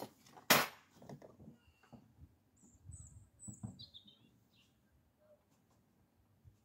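A sharp knock about half a second in, then scattered soft clicks and knocks of parts being handled in a car's engine bay. A bird chirps a few times near the middle.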